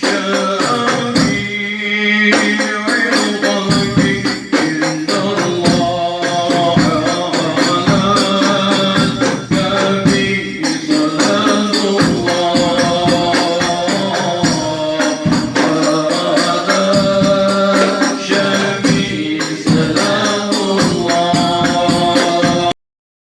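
Music with singing, a melodious religious song with a jingling tambourine-like percussion beat; it cuts off abruptly near the end.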